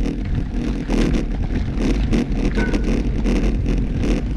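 Road bike rolling over an unpaved trail: a steady low rumble of wind on the microphone and tyre noise, with frequent small rattling clicks.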